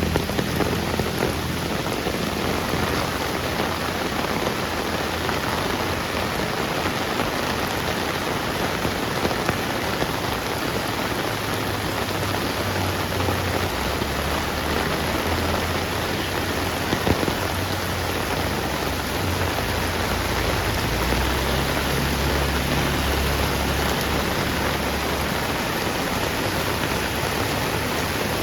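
Heavy rain falling steadily, an even hiss of drops on hard surfaces. A low rumble comes and goes underneath, louder in the middle and latter part, with a single sharp tick about two-thirds of the way through.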